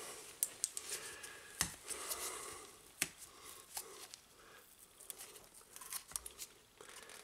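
Gloved fingers picking and tearing the foil seal out of the neck of a plastic fluid bottle: faint crinkling and tearing with scattered small clicks.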